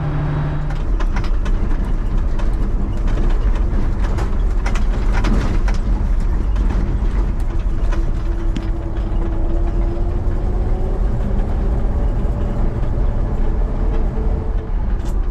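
Case IH 2388 combine running steadily while harvesting corn, with many scattered clicks and knocks over a constant low engine rumble. A faint whine drifts slightly upward in pitch around the middle.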